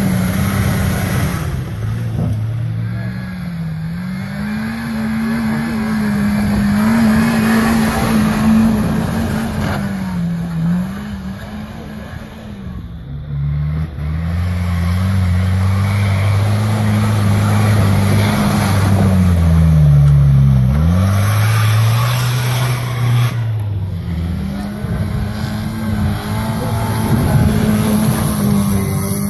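4x4 off-road vehicles' engines revving hard through deep mud and slush, the engine pitch rising and falling again and again as the wheels spin and throw up mud.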